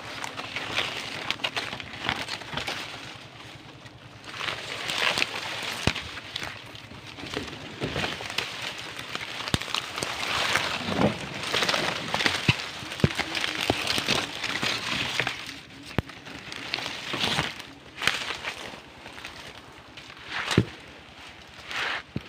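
Dry palm fronds and leaf litter rustling and crackling as someone forces through a thicket, with sharp snaps and knocks from stems being broken and cut with a knife.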